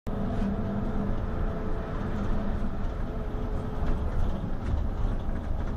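Hino RG coach running at road speed, heard from inside its cabin: a steady engine drone and road rumble with a low, held hum.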